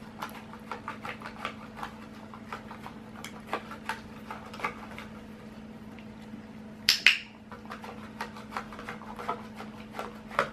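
A dog licking at a nearly empty plastic cup, a run of small wet licking smacks. About seven seconds in comes one sharp training-clicker click, marking the dog licking its own muzzle.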